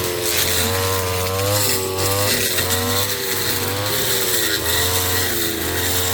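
Brush cutter engine running at high speed while clearing weeds, its pitch sagging and recovering every second or so as the cutting head takes load.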